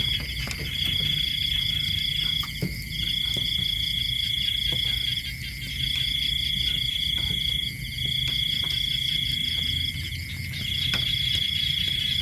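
Night insects calling: a high, steady trill that sounds in bursts of about one and a half to two seconds with short gaps, over a continuous lower drone from other insects.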